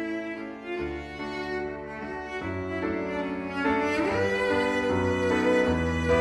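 Background music of bowed strings, violin over cello, playing slow sustained notes over a low bass line, growing a little louder about four seconds in.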